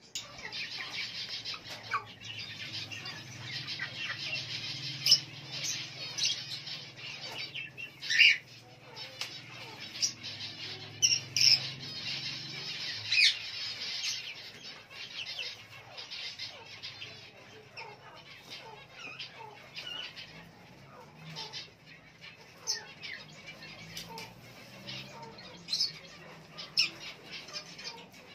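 Many birds chirping and calling at once, with sharp louder squawks now and then; the chatter is busiest in the first half and thins out later.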